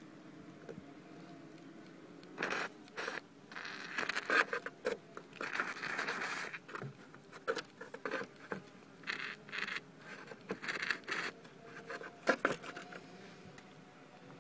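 Pressurised insecticide applicator hissing in a run of short puffs, with one longer blast near the middle. The puffs start about two seconds in and stop about a second before the end.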